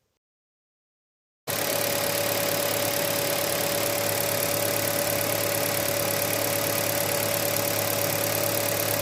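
A car engine idling steadily, with a constant drone and a fixed tone. It cuts in abruptly about a second and a half in, after dead silence.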